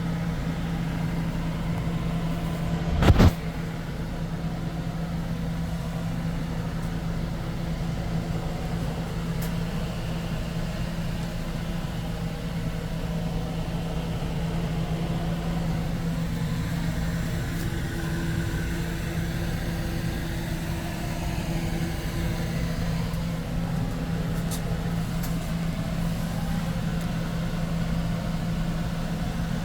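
Water heater running with a steady low hum and rumble. One sharp, loud knock about three seconds in.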